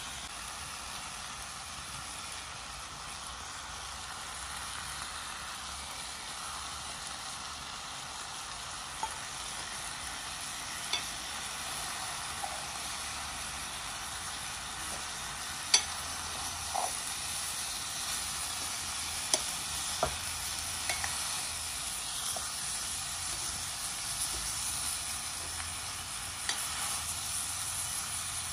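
Cauliflower and vegetables sizzling steadily as they fry in a small iron wok over a wood fire, stirred with a metal spoon. Scattered sharp clicks come through now and then, the loudest about halfway through.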